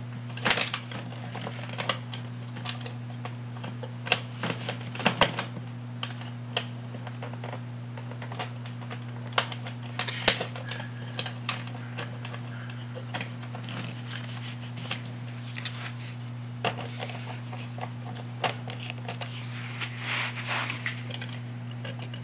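Irregular clicks and small metallic taps of a screwdriver and fork terminals being worked against the screws of a stove's terminal block, over a steady low hum.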